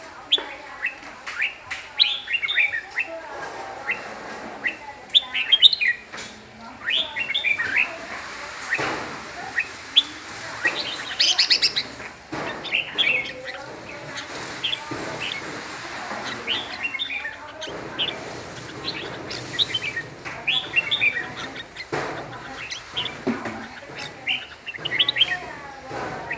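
Red-whiskered bulbul singing: phrase after phrase of short, quick whistled notes with brief pauses between them, and a denser run of rapid notes about halfway through.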